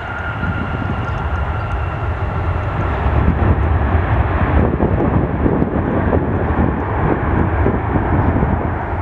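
Jet airliner's engines running as it rolls along the runway: a loud, steady, deep rumble with a thin whine that fades after the first few seconds.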